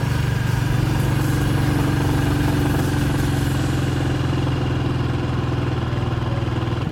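Motorcycle engine running steadily as the bike climbs a hill.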